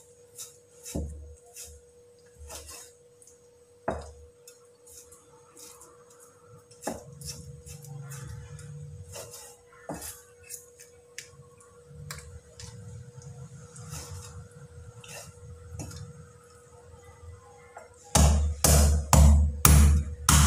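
Cleaver knocking and tapping on a round wooden chopping board as raw chicken is cut. Near the end comes a run of loud, heavy chops, about six strikes in two and a half seconds, as the cleaver cuts through chicken feet.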